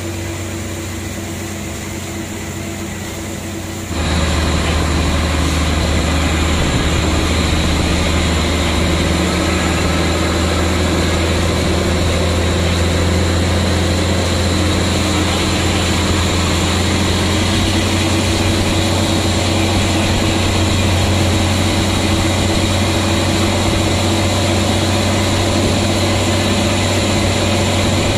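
Heavy engine of a military amphibious truck running steadily with a deep drone, heard from aboard as it drives through floodwater; it steps up louder about four seconds in, after a quieter stretch over rushing floodwater.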